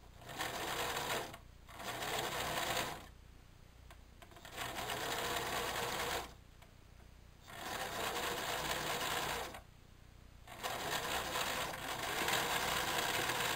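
Electric household sewing machine zigzag-stitching along the thick edge of a terry-cloth towel seam. It runs in five short spurts of one to two seconds each, with brief stops between them.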